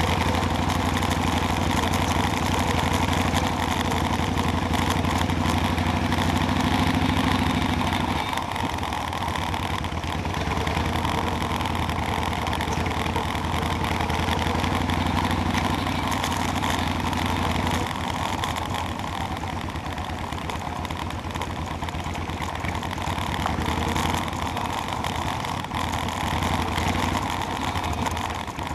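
Motorcycle engine running steadily, its low note easing off about eight seconds in and again near eighteen seconds.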